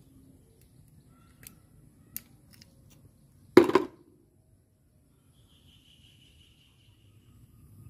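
Metal spoon prying an oyster shell open: a few light clicks of metal on shell, then one loud sharp crack about three and a half seconds in as the shell gives.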